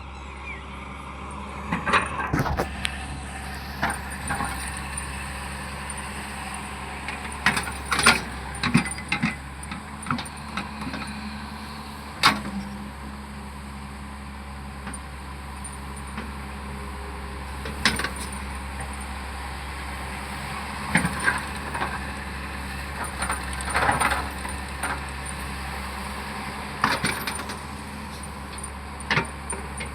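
Hyundai excavator's diesel engine running steadily under work, with irregular sharp metallic clanks and knocks every few seconds as the machine digs.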